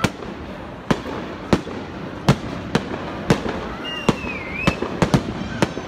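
Fireworks bursting in the sky: a rapid, irregular series of sharp bangs, about ten in six seconds, over a steady background rumble.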